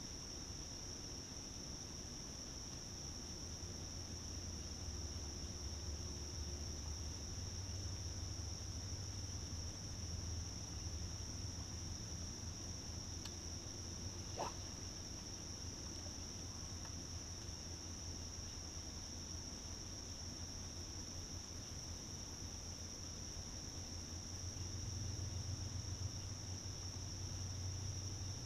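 Steady, high-pitched chorus of insects, crickets or katydids, running unbroken at one pitch, over a low rumble that swells and fades. A single sharp click sounds about halfway through.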